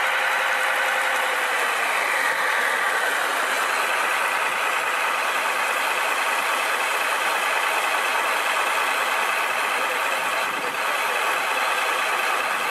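Radio-controlled scale dump truck tipping its bed, its motors running with a steady mechanical whine and hum while the load of rocks slides out. The pitch of the whine shifts about two seconds in.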